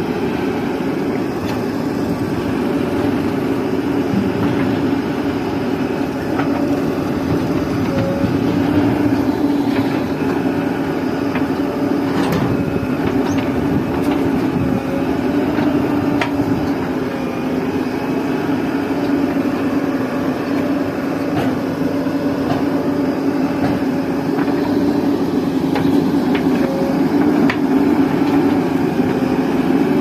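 Diesel engines of a JCB 3DX backhoe loader and Mahindra tractors running steadily at a constant pitch, with a few faint knocks.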